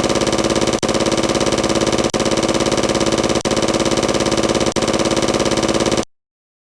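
Looped synthetic buzzing sound effect standing in for a toy blaster: a loud, steady buzz with a fast pulsing texture, restarting with a brief dip about every 1.3 seconds. It cuts off abruptly about six seconds in.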